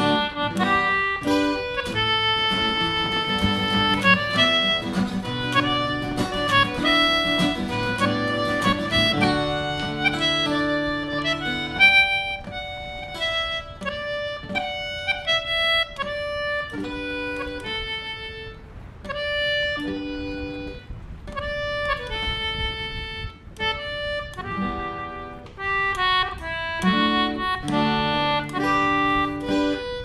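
Concertina and acoustic guitars playing a folk tune together: held concertina melody notes over plucked and strummed guitar. The playing thins out for a stretch in the middle and fills out again near the end.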